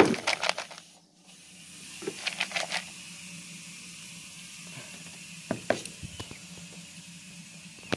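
Plastic bait bucket being handled, tilted and set down on a wooden deck: short bunches of clicks and rattles near the start, about two seconds in and again past the middle, over a steady hiss.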